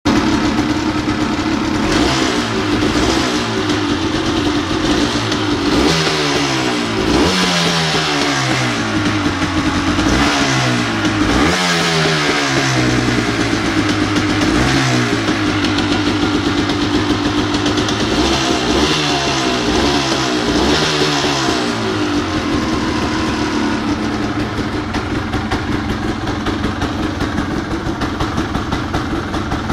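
Honda CRM250's single-cylinder two-stroke engine running, revved in a series of quick throttle blips that rise and fall in pitch through the first two-thirds, then settling to a steady idle. The idle is not quite as even as the owner would like, which he puts down to stale fuel.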